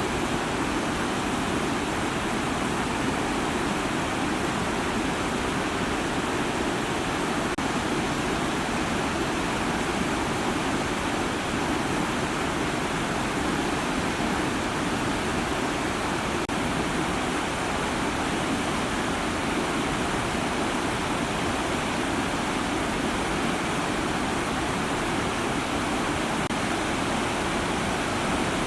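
Steady rush of water from Hagoromo Falls, a tall waterfall cascading down a gorge wall, heard as an even, unbroken noise with no change in level.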